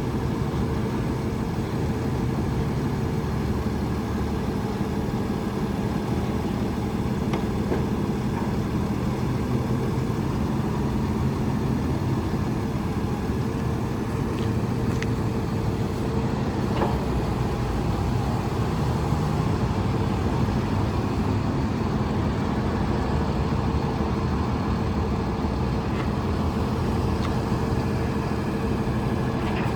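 Diesel engine of a Freightliner M2 grapple truck running steadily at a constant speed, with a few faint clicks.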